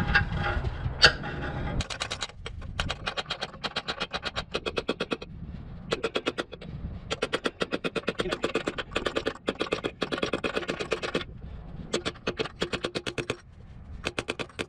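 Hammer blows knocking a stuck torque converter off a TH350 automatic transmission, in fast runs of sharp metallic strikes, several a second, with short pauses between the runs.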